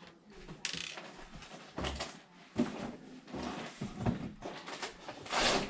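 Handling noise from PC parts being fitted during a computer build: a string of short rustles and clicks, with a sharp click about halfway through and the loudest rustle near the end.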